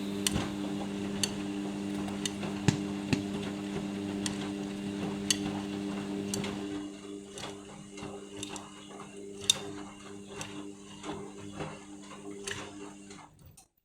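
Indesit washing machine running: a steady motor hum with scattered clicks and knocks as the drum turns the load. A hissing noise drops away about halfway through, and the hum stops just before the end.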